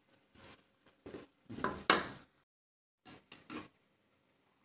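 Wooden spatula stirring thick masala in a cooking pot, scraping and knocking against the pan in a run of short strokes, the loudest about two seconds in. After a brief cut to silence, three quick taps.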